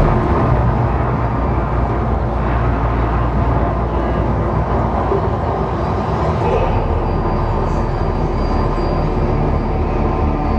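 Loud, steady, deep rumble from the Mirage volcano show's loudspeaker soundtrack, building up to the eruption.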